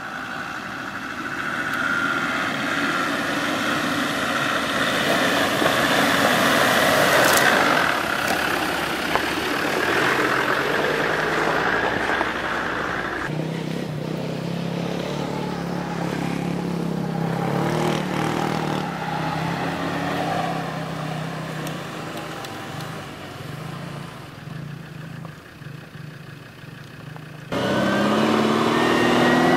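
Off-road vehicle engine running and revving under load. The sound changes abruptly about thirteen seconds in and again near the end.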